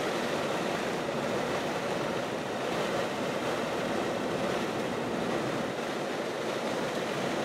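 Steady wind blowing across the microphone, an even rushing noise with no breaks.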